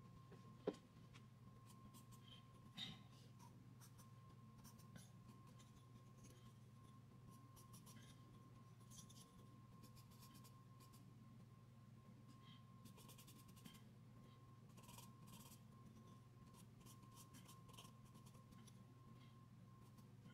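Faint scratching of a charcoal pencil on drawing paper in short, irregular strokes, over a low steady hum. A sharp click under a second in is the loudest sound.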